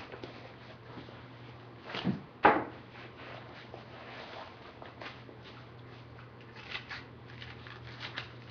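Handling noise from new lacrosse gloves being taken out of their packaging: light rustles and clicks, with two sharp sounds about two seconds in, the second one the loudest, over a faint steady low hum.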